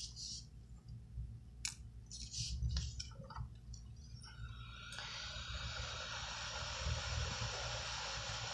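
Small clicks and scrapes of tools on the phone screen, then about five seconds in a hot-air blower starts and blows with a steady hiss, heating the home button so its adhesive lets go.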